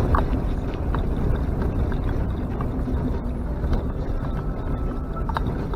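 Off-road vehicle driving on a rough track: a steady low engine and running rumble, with scattered short knocks and rattles.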